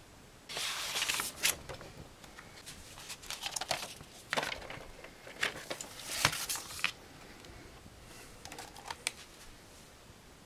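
Paper rustling and crackling in several sharp bursts as a large folded poster and a paper record inner sleeve are handled, then a shorter, softer rustle near the end.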